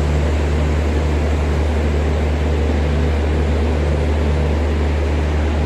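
Diesel engine of a passenger train standing at the platform, idling as a steady loud low hum with a regular throb pulsing over it.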